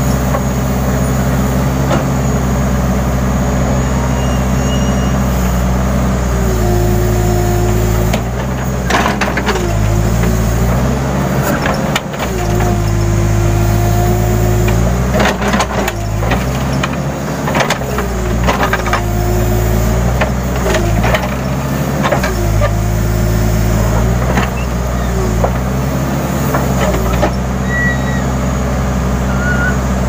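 Case N Series backhoe loader's diesel engine running steadily under load while the hydraulics work the backhoe arm, with a whine that rises and falls as the boom and bucket move. In the middle there is a run of knocks and scrapes from the bucket digging into the hillside, and the engine dips briefly under the load.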